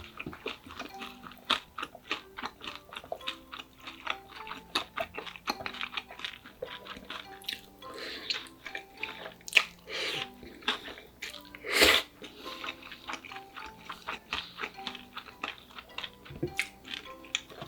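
Close-miked eating: steady chewing with many small wet mouth clicks, and a few louder noisy bites or slurps about 8, 10 and 12 seconds in, over quiet background music.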